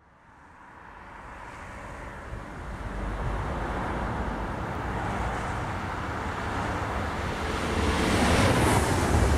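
Electric passenger train, a DB class 101 locomotive hauling a long rake of coaches, approaching at speed: the rush and rumble of wheels on rail grows louder and swells near the end as it comes close.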